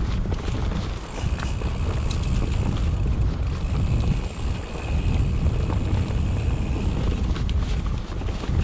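Wind buffeting the microphone while a mountain bike rolls fast down a rocky trail, with scattered clicks and rattles from the bike over the rocks.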